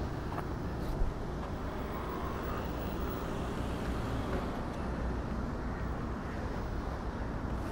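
Steady low rumble of road traffic, with one short sharp knock about a second in.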